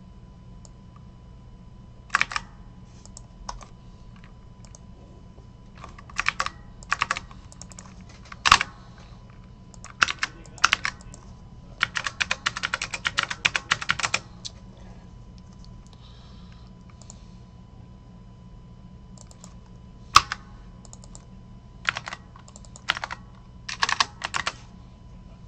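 Typing on a computer keyboard in irregular bursts of keystrokes, with a fast run of typing about twelve seconds in. A steady low hum runs underneath.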